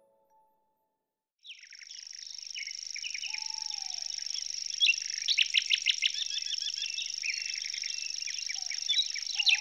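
Many birds chirping and twittering together over a steady high-pitched tone, starting abruptly about a second and a half in. A lower whistled call sounds twice.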